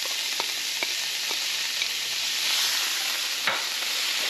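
Chopped onion and celery sizzling in melted butter in a frying pan, with a spatula tapping and scraping against the plate and pan a few times in the first second and a half. A louder knock about three and a half seconds in.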